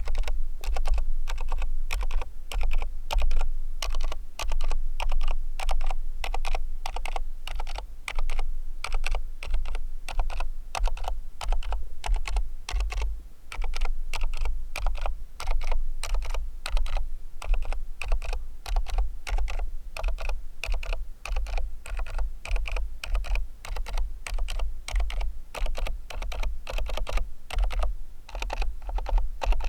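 A Cherry MX 2.0S Wireless Pro mechanical keyboard with Cherry MX2A Red linear switches being typed on without a break: a fast, steady run of keystrokes, several a second.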